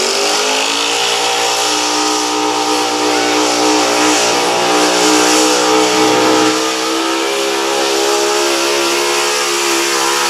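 A 1990s Ford F-series 4x4 pickup's engine at full throttle, pulling a sled down a dirt track. The revs climb at the launch, then hold high and steady, with a brief dip about six and a half seconds in.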